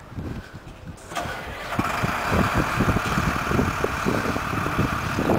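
Fire engine's engine starting about a second in and then running steadily, louder by about two seconds in. Wind buffets the microphone throughout.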